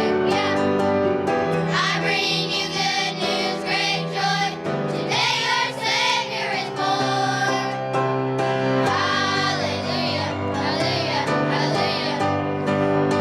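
A children's choir singing with musical accompaniment.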